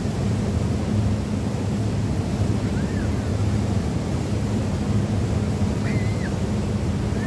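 Tour boat's engine drone, steady and low, under a rush of wind and water. A few short high chirps that rise and fall sound over it.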